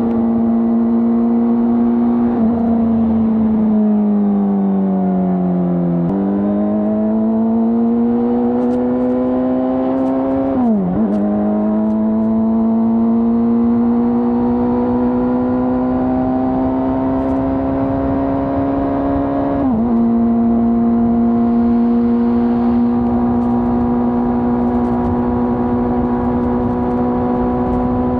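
A 2025 Honda CBR600RR's inline-four engine running through its stock exhaust while riding. Its note sinks as the bike slows, then climbs again under throttle. Twice it drops sharply and recovers in an upshift, and it holds steady near the end.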